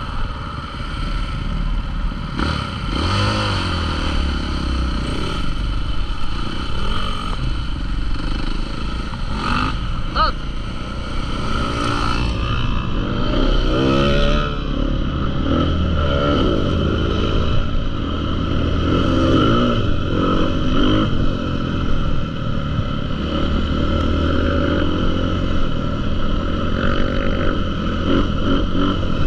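Motocross bike engines revving, their pitch rising and falling several times as bikes ride past.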